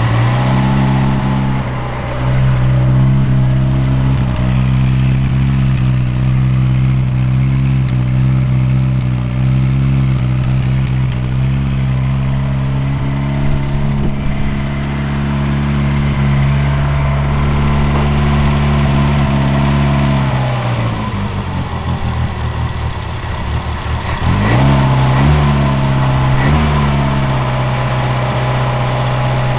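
Freshly restored 1969 Reliant Regal's small four-cylinder engine running just after being fired up, speaker having said it is on choke. The note holds steady, then about twenty seconds in it sags and falters for a few seconds before climbing back up and running on steadily.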